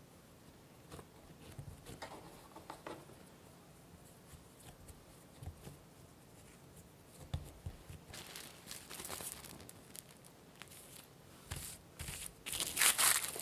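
Soft, dull pats of hands folding pastry dough on a wooden board. From about eight seconds in, plastic cling wrap crinkles and rustles as it is spread over the dough, loudest near the end.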